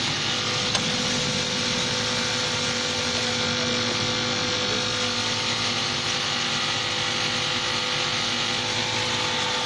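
High-speed CNC coil nail making machine running, a steady mechanical noise with several held tones, broken only by a light click about a second in.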